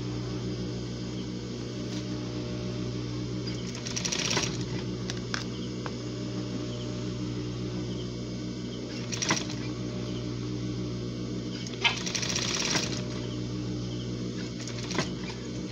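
Industrial sewing machine with its motor humming steadily. It stitches in a few short runs while the fabric and zipper are fed under the presser foot.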